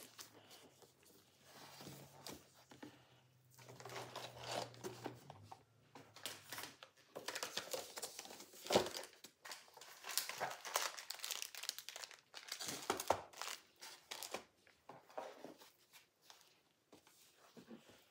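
Wrapped gift boxes being handled and packed into a cardboard storage box: wrapping paper rustling and crinkling, with knocks as packages are set down, the sharpest about nine seconds in.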